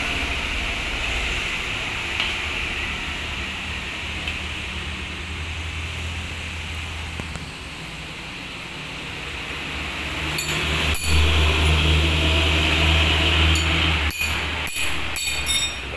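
Steady rain hiss over a low, steady rumble that grows louder about two-thirds of the way through. Several sharp metallic clinks near the end.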